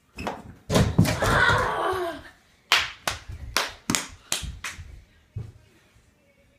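Mini basketball play at an over-the-door hoop: a loud clattering burst as the shot meets the hoop and door, then about six sharp slaps roughly a third of a second apart that fade out, like the small ball bouncing on the tile floor.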